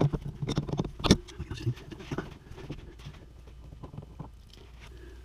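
Metal wrench jaws clicking and scraping on a brass elbow fitting as it is worked loose from a CPVC line, a quick run of clicks with the loudest knock about a second in. After that, fainter ticks as the loosened fitting is turned by hand.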